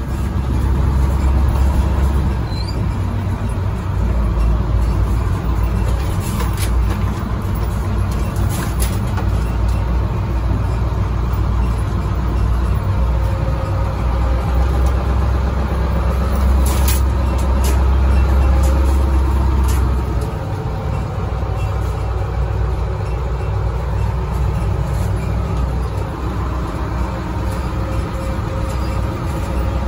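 School bus chassis and engine under a locomotive body shell, driving slowly: a steady low engine rumble heard from the cab, with a few sharp knocks and rattles. The rumble eases off about twenty seconds in.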